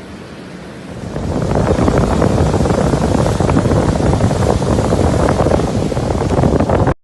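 Strong wind buffeting the microphone on a beach, with surf noise underneath. It swells about a second in and cuts off abruptly near the end.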